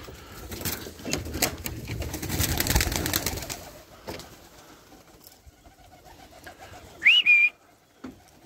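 A flock of pigeons circling close overhead, a rush of wingbeats with rapid fine clatter for the first few seconds. About seven seconds in comes a short loud whistle that rises, then holds one note.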